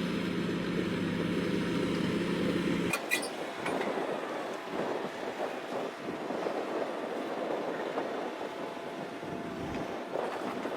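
Heavy machinery running: a steady engine hum, which changes abruptly about three seconds in to a rougher, crackling mechanical noise.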